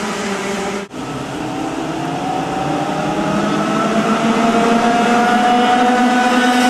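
A pack of racing karts' two-stroke engines running together, several engine notes overlapping, their pitch rising steadily as the karts accelerate toward the microphone. The sound drops out for an instant about a second in.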